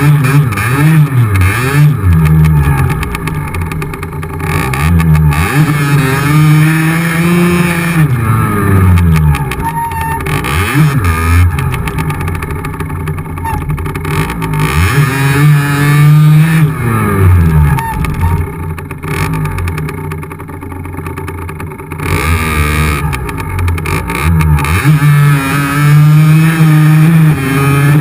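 Yamaha DT50X's 50cc two-stroke single-cylinder engine, heard close up, revving up and easing off again and again as the bike is ridden through snow.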